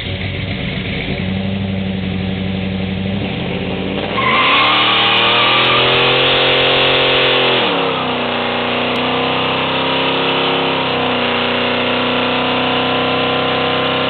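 Supercharged 470 big-block Chevy V8 idling, then revving up sharply about four seconds in as the rear tyres break loose and squeal in a burnout. The revs ease down a little near eight seconds and hold steady while the tyres keep spinning.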